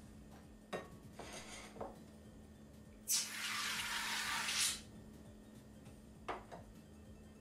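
Aerosol can of shaving cream spraying foam: a loud hiss lasting about a second and a half. A short knock follows near the end.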